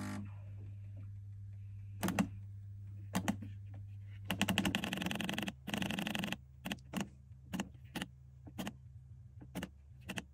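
Buttons on a Vaillant combi boiler's control panel clicking as they are pressed, a dozen or so short clicks, most of them in the last few seconds. Under them a steady low hum from the running boiler, and about four seconds in a buzzing rattle lasting about two seconds.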